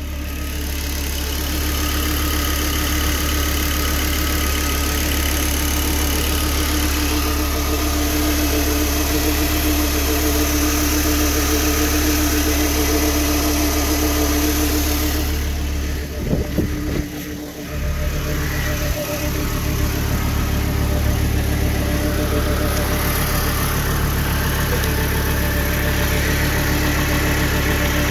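Volvo V70R's turbocharged five-cylinder engine idling steadily, with a short dip and a few knocks about two-thirds of the way through.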